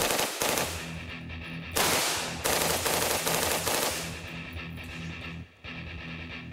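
SIG 552 Commando .223 rifle firing bursts on full auto: a short one at the start and a longer one of about two seconds from about two seconds in, over background music.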